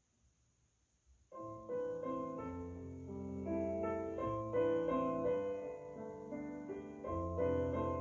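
Piano music played through Revel PerformaBe M126Be bookshelf speakers, with a 1-inch beryllium tweeter and a 6.5-inch ceramic woofer. It is nearly silent between tracks, then about a second in a new piece begins, with piano notes and chords over low bass notes.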